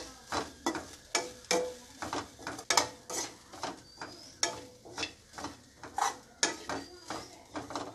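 A metal spoon scraping and knocking against a metal pan, about two to three strokes a second, as grated coconut is stirred and roasted in ghee, with a faint sizzle underneath.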